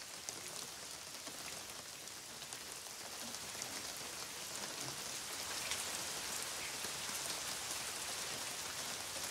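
Heavy rain falling on roof tiles: a steady hiss with scattered drop ticks, growing gradually louder.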